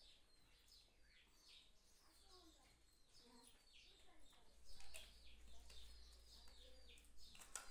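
Faint birds chirping: many short, quick, falling chirps, with a light click about five seconds in.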